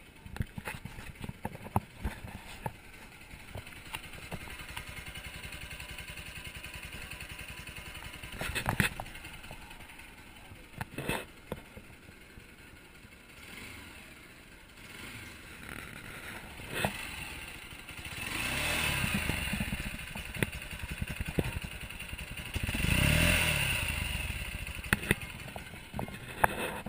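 Bajaj Pulsar NS 200's single-cylinder engine idling at a standstill, given a few quick throttle blips and then two longer revs that rise and fall in the second half, the last one the loudest.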